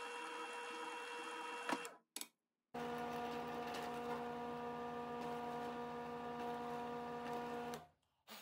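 Drill press motor running as a 1/8-inch bit drills small holes in a man-made knife handle scale, cutting off abruptly about two seconds in. After a short gap a second drill press runs steadily, at a lower, different hum, for about five seconds and stops near the end.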